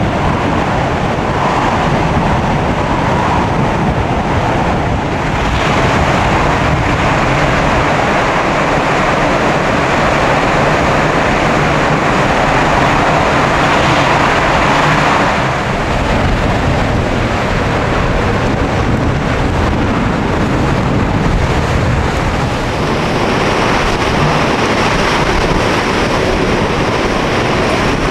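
Hurricane-force wind and driving rain: a loud, continuous rush that swells stronger for several seconds near the middle, with wind buffeting the microphone.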